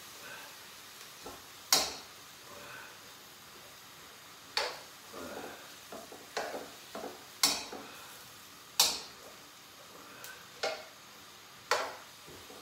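A cooking utensil knocks and scrapes against a wok while chicken and vegetables are stir-fried, giving about seven sharp, irregularly spaced clacks over a faint steady hiss of frying.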